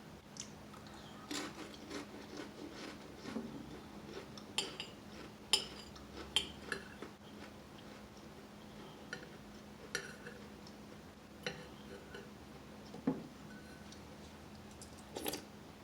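Metal spoon clinking and tapping against a soup bowl, in scattered, irregular strokes a second or so apart, as soup is eaten. A faint steady hum runs underneath.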